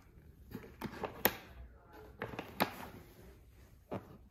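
About six sharp taps and clicks of a hand handling a Dynamat-covered hardtop roof panel and its latch, the loudest a little over a second in.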